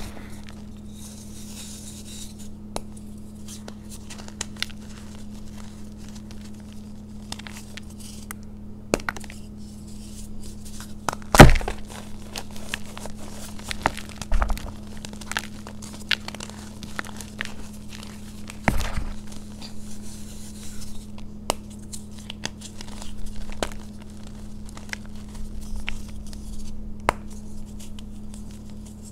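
Hands crushing and crumbling pressed yellow chalk reforms in a bowl of loose powder: soft crunches and crackles with scattered clicks, over a steady low hum. One loud thud comes about eleven seconds in, and a smaller one a little later.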